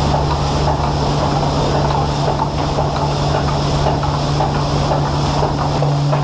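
Machinery running steadily: a constant low hum over dense mechanical noise, the hum shifting slightly in pitch near the end.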